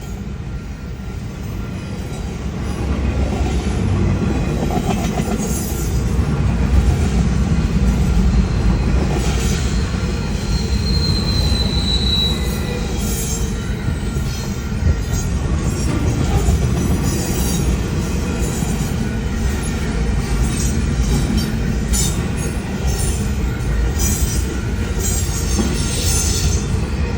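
Trains passing close by on the track: a steady rumble of rail cars that builds over the first few seconds. A brief high wheel squeal comes about ten seconds in, and short clicks and squeaks from the wheels follow through the rest of the passage.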